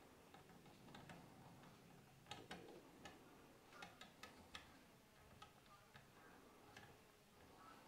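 Near silence with a scatter of faint clicks and ticks from a hand tap turned in a T-handle tap wrench, cutting threads for 8-32 screws into the plastic Z-axis bearing housing of a 3018 CNC router.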